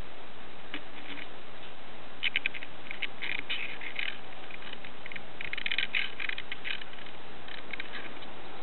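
Male northern cardinal on a car door's window ledge tapping his beak against the window glass at his own reflection: several bursts of quick light taps, the longest about six seconds in, over a steady hiss.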